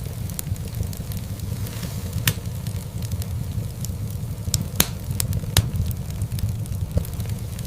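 Wood fire burning in a fireplace: a steady low rumble of flames with scattered sharp crackles and pops, the loudest pops about two, five and five and a half seconds in.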